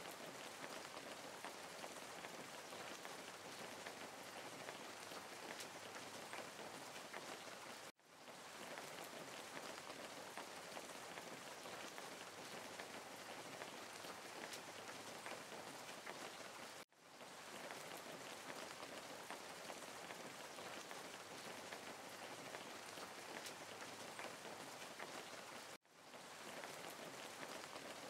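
Faint, steady rain patter that cuts out briefly and fades back in about every nine seconds, three times, like a looped rain recording.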